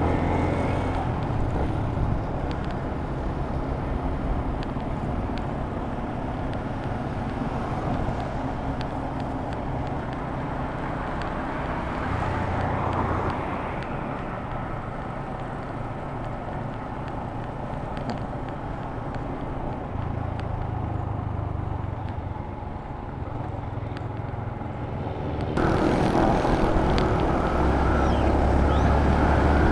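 Yamaha Sniper 150 motorcycle running on the road, its single-cylinder engine under the rush of wind over the camera microphone. Near the end the sound gets louder and brighter.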